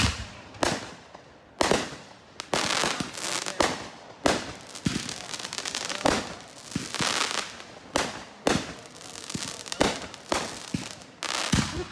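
Aerial fireworks going off: sharp bangs about once a second, with stretches of crackling from crackling stars between them.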